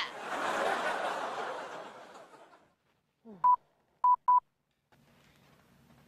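Sitcom laugh track: canned audience laughter that starts at once and fades away over about two and a half seconds. About a second later come three short, high beeps, the last two close together.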